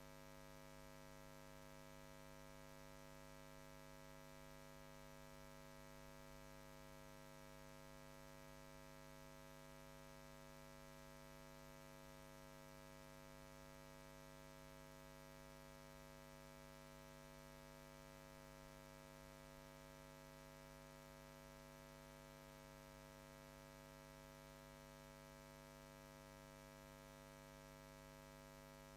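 Near silence: a faint, steady electrical hum with buzzing overtones and a light hiss from the sound system, with no voice coming through. The microphone feed has dropped out.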